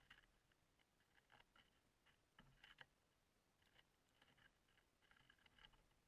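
Faint, irregular clusters of small taps and scratches: Steller's jays pecking seed at a wooden feeder.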